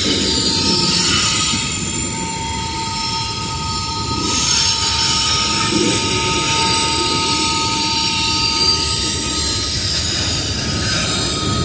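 Freight train boxcars rolling through a curve, their steel wheels squealing against the rails in two steady high tones over the continuous rumble of the cars. A higher hiss of squeal grows stronger about four seconds in.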